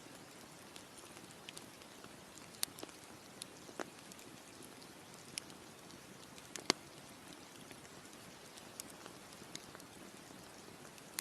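Campfire crackling: irregular sharp pops and snaps from the burning wood over a low, steady hiss, the loudest snap about two-thirds of the way through.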